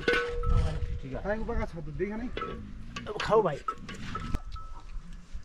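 A flock of sheep bleating in several wavering calls, with a small livestock bell ringing in between.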